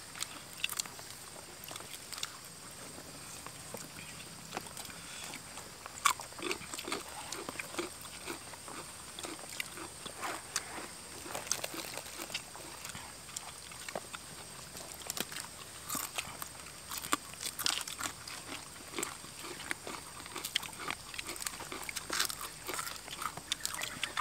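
Several people eating with their hands, chewing and biting crispy flour-battered fried tilapia and raw vegetables such as cucumber, with many short sharp crunches scattered throughout; one louder crunch comes about six seconds in.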